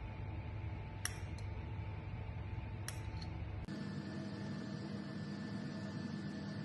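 A steady background hum with a few held tones, which changes abruptly just past halfway, and two light clinks of a spoon against a small ceramic dish in the first half.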